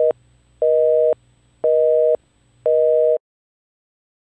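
Telephone busy signal: a two-tone beep repeating about once a second, half a second on and half a second off, the sign that the called line is engaged. It cuts off about three seconds in.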